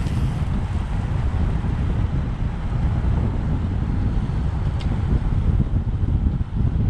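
Wind buffeting the microphone of a camera carried on a road bike at racing speed: a loud, fluttering low rumble that rises and falls.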